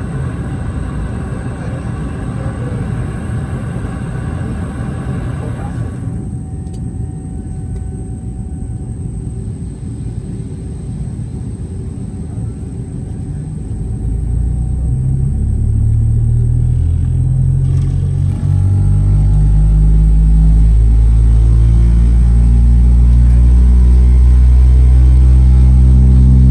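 Cabin of a Boeing 717 with its tail-mounted Rolls-Royce BR715 engines: the steady air hiss cuts out about six seconds in, typical of the air conditioning shutting off for engine start. From about halfway through, an engine starts and spools up, a deep hum climbing in pitch and growing louder to the end.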